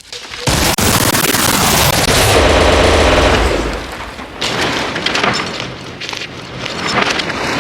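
Rapid continuous gunfire, starting about half a second in and running dense for a few seconds, then thinning to separate shots.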